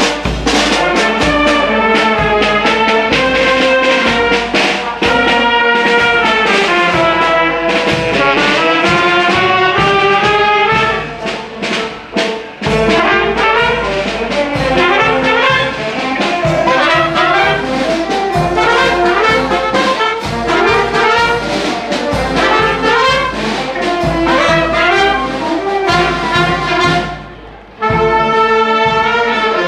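Marching band of trumpets, saxophones and other brass playing a tune while walking. The music dips for a moment about halfway through and breaks off briefly near the end before starting again.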